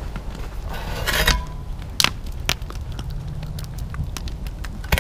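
Wood fire crackling in a brick fire pit, with scattered sharp pops over a steady low rumble of wind on the microphone.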